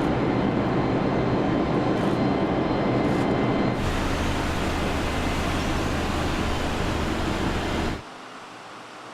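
Loud, steady engine-like running noise with a low hum, changing abruptly about four seconds in and cutting off suddenly about eight seconds in.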